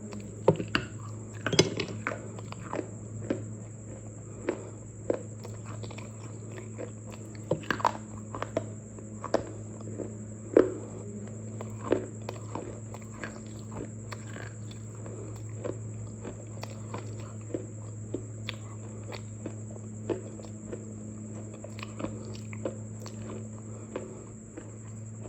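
Something crunchy being chewed: irregular crisp crunches, loudest in the first half, over a steady low electrical hum.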